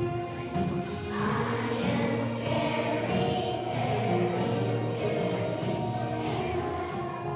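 A choir of young children singing held notes over instrumental accompaniment with a steady beat.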